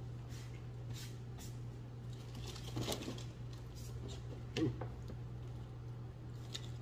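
Light rustling and scattered taps of things being handled on a tabletop, with one louder knock about two-thirds of the way through, over a steady low hum.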